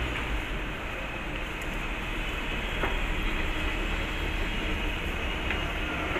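Steady low rumble of a Kolkata Metro train running, with a single sharp click about three seconds in.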